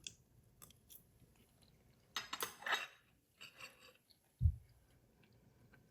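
Cutlery clinking and scraping against a plate in a few short clusters, with scattered clicks, and one dull low thump about four and a half seconds in.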